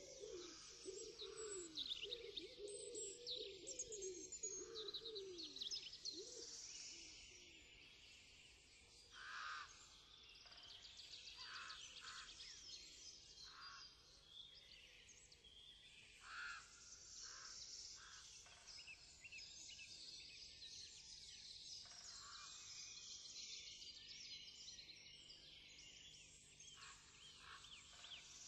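Faint chorus of many small birds chirping and twittering, with low falling cooing calls over the first several seconds.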